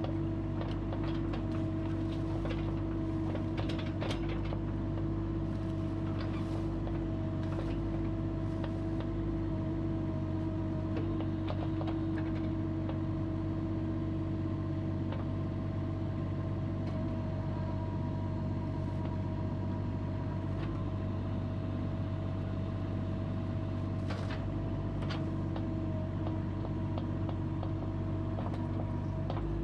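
Caterpillar mini excavator's diesel engine running steadily under hydraulic load as the arm and log-splitter attachment are moved, with scattered metallic clanks and knocks from the attachment and linkage.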